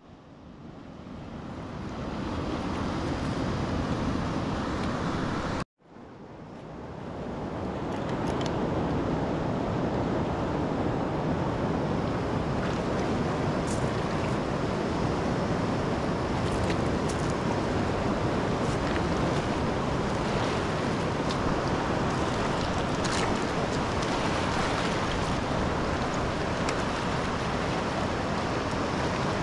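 Steady rushing noise, with no speech or music. It cuts out briefly at the start and again about six seconds in, each time fading back up over a couple of seconds.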